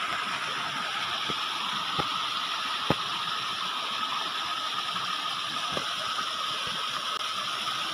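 Small waterfall splashing steadily into a stream pool, with a couple of light ticks about two and three seconds in.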